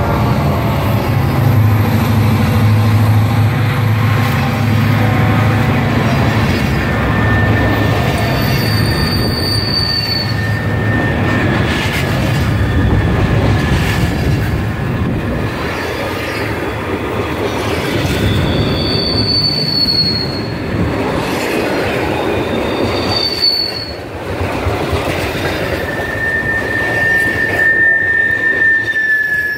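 Freight train passing close by. In the first few seconds the last Wheeling & Lake Erie diesel locomotive, working hard uphill, goes past with a steady low engine drone. After that, tank cars roll by with a continuous rumble of wheels on rail and high-pitched wheel squeals that come and go, the longest near the end.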